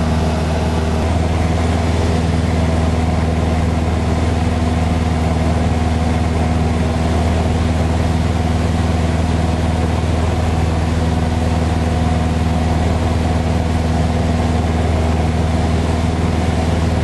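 Piper Cub light aircraft's piston engine and propeller, heard from inside the cabin, droning steadily in level cruise flight.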